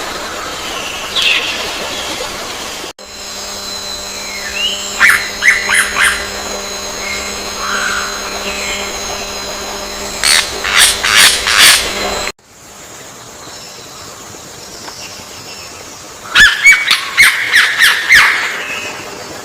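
Bird calls: several quick runs of short, sharp chirps a few seconds apart, the loudest near the middle and near the end. A faint steady hum sits behind the calls in the middle part, and the background changes abruptly twice where clips are cut together.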